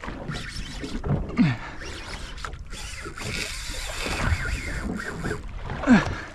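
Water noise and wind around a small boat at sea, with two short sounds that drop in pitch, about a second and a half in and near the end.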